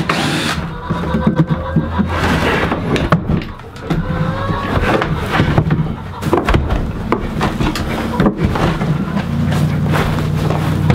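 Cordless drill driving screws into wooden boards, the motor running in several runs with brief pauses between them.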